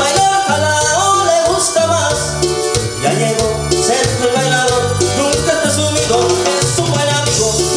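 Cumbia played on an arranger keyboard: the Korg PA-700's programmed cumbia rhythm, with a pulsing bass on the beat and shaker-like percussion, under a keyboard melody.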